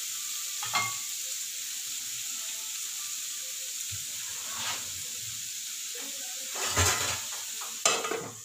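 Jackfruit seeds in spiced tomato masala sizzling steadily in a pan while being stirred. A spoon clinks against the pan a few times, loudest near the end.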